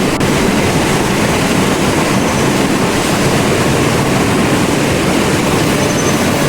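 Steady, loud rush of falling water.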